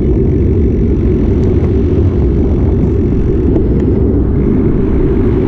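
Wind buffeting the microphone of a camera riding on a moving bicycle: a loud, steady low rumble with a few faint clicks.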